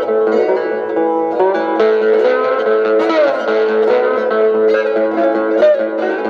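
Cigar box guitar picked in a country-blues style: quick plucked notes over steadily ringing drone notes, with one note sliding down in pitch about three seconds in.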